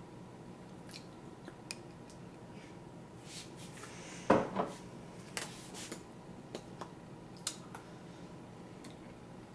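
A few light clicks and one louder knock about four seconds in, followed by a smaller one: objects being handled and set down on a kitchen counter, over quiet room tone.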